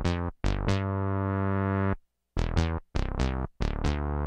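Korg Poly-800 synthesizer playing a synth bass patch: a riff of short plucked notes that ends on a held low note. It stops for a moment about two seconds in, then the riff plays again, ending on another held note.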